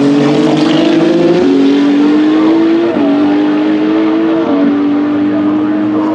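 Race car engine accelerating hard through the gears. The pitch climbs, then drops sharply at each of three upshifts spaced about a second and a half apart.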